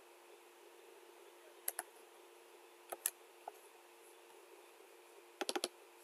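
Computer mouse clicks: two double-clicks, a single click, then a quick run of four clicks near the end, over a faint steady hum.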